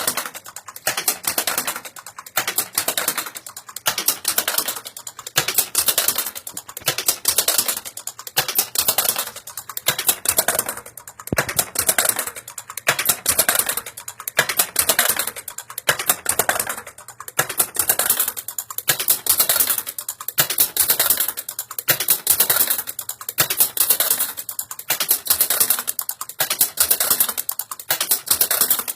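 Black Hole pinball machine's solenoids and drop-target reset coils firing over and over in a test sequence: dense mechanical clicking and clacking in clattering bursts about every two seconds, the drop targets knocked back up as soon as they go down.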